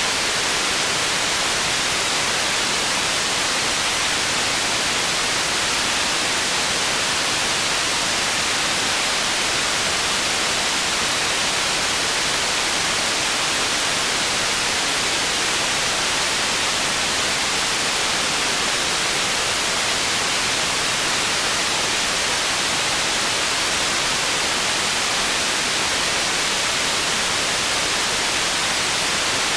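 Processed white noise for tinnitus masking: a steady, unbroken hiss, brightest in the upper-middle range and thin in the bass.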